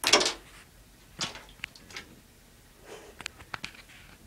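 A hand moving in bathwater and knocking small plastic bath toys: a loud splash right at the start, a smaller one about a second in, then a few short knocks and clicks.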